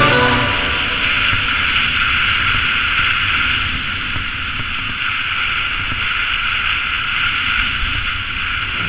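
Wind rushing over the action camera's microphone during a fast downhill ski run, mixed with the steady hiss and scrape of skis sliding on packed snow.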